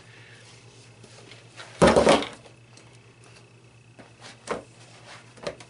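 Protective gear (respirator mask, face shield, ear muffs) being pulled off and set down on a wooden workbench: rustling and handling noise, with one loud knock about two seconds in and a few lighter knocks near the end.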